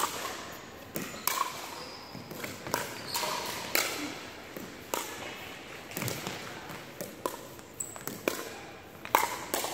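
Pickleball rally: paddles striking a hard plastic pickleball, with the ball bouncing on the hardwood court, a sharp pock about every half second to a second, around a dozen in all.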